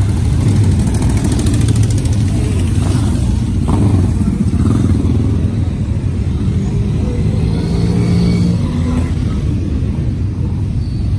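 Many motorcycle engines running at once: a line of classic and café-racer bikes idling while others pull away and ride past one after another. Past the middle, one engine's steady note stands out for about a second.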